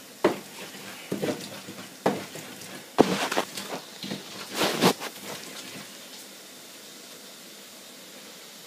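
Wooden pestle grinding a wet pepper mash in an earthenware bowl: a handful of short scraping knocks about a second apart, the longest near five seconds in. After that only low room noise.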